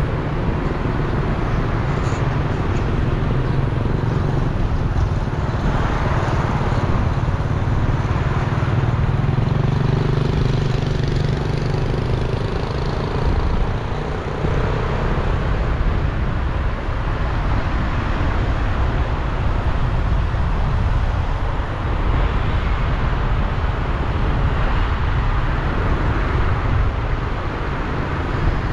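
Steady road-traffic and vehicle noise with a continuous low rumble and no distinct events.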